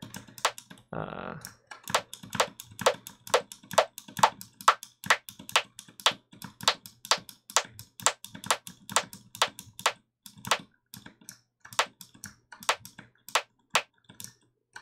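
A short FM-synthesized rimshot/percussion hit made in Ableton Operator, repeating evenly about twice a second as a loop, its brightness shifting as an EQ boost is swept across the upper frequencies.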